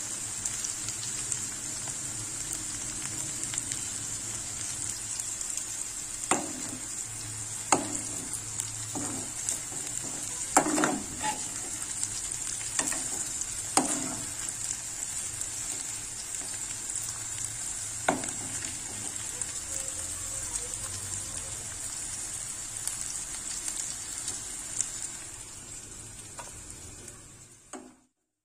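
Chopped okra sizzling steadily as it fries in a metal pan. A spoon knocks and scrapes against the pan several times near the middle while stirring. The sizzle fades out just before the end.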